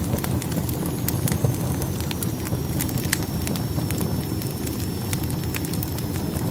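Wood fire burning in a fireplace: a steady low roar of flames with frequent irregular sharp crackles and pops from the burning logs. A faint thin high whistle enters about a second in, dipping slightly in pitch, then holds.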